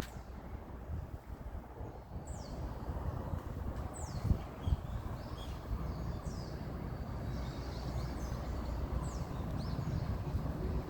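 Short, high bird calls, each falling quickly in pitch, repeated every two or three seconds over a steady low outdoor rumble.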